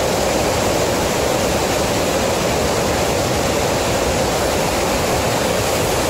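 Steady rushing of Montmorency Falls, an 83-metre waterfall, an even roar of falling water with no break or change.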